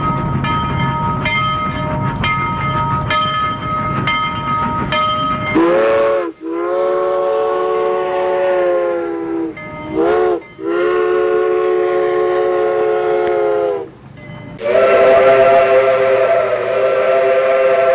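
Steam locomotive bell ringing, struck about twice a second, then the locomotive's steam whistle blowing: a long blast, a short one, another long one, and a further long blast that is still sounding at the end. Each blast swoops in pitch as it starts.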